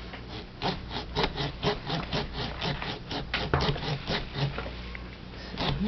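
Stainless steel pumpkin carving tool cutting into a pumpkin's rind along the lid line with quick back-and-forth strokes, about three a second.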